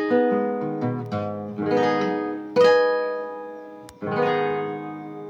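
A requinto, the small high-tuned nylon-string guitar, being played: a short run of plucked notes and strummed chords, each left to ring out and die away, with the last chord struck about four seconds in.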